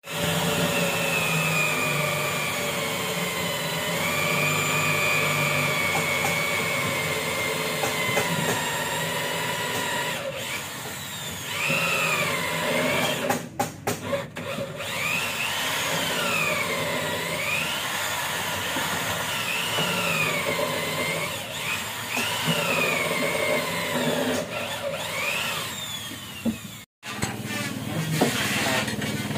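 Handheld electric drill running steadily, its motor whine rising and falling again and again as it is pressed into the work and eased off.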